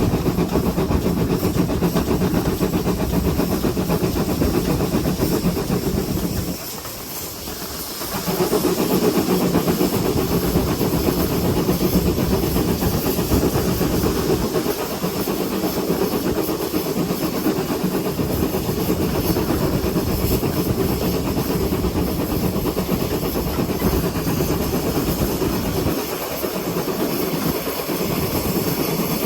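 GWR 5700 class pannier tank steam locomotive 7714 under way, a steady hiss of steam over the running noise of the engine and wheels. The low part of the sound drops out briefly about seven seconds in, then comes back.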